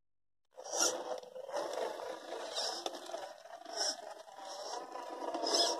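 Radio-controlled scale crawler's Fusion 1800kv brushless motor and gear drivetrain running in high gear with a steady whine as it drives over dirt, with short scraping bursts every second or two. The sound starts about half a second in, after a brief dropout.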